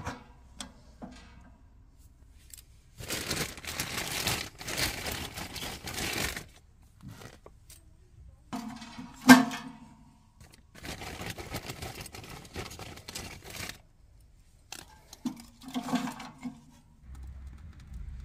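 Kindling being handled and lit in the steel firebox of a wood-burning tent stove: stretches of scraping and rustling, with one sharp knock about nine seconds in.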